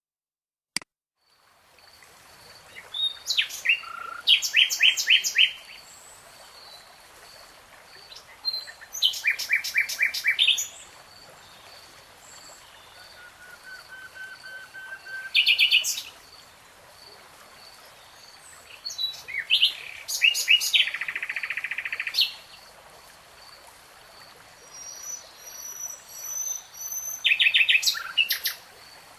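Wild birds singing: bursts of rapid, repeated high chirping notes and short trills every few seconds, over a faint steady background hiss, with a single sharp click in the first second.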